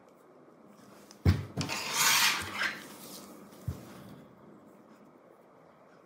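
Plastic pry tools knocking and scraping inside an opened laptop: a sharp knock a little over a second in, about a second of scraping, then a lighter knock.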